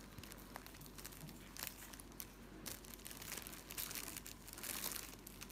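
A shih tzu chewing a piece of bread: faint, irregular crunching and crackling, growing denser from about three seconds in.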